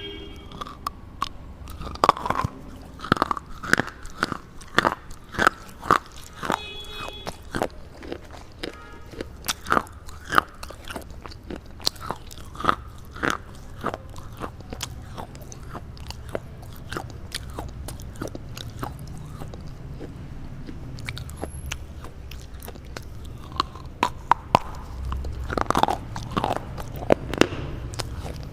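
Close-up dry crunching of a red slate bar being bitten and chewed: sharp snaps and crackles that come in clusters, thinning out in the middle and picking up again near the end.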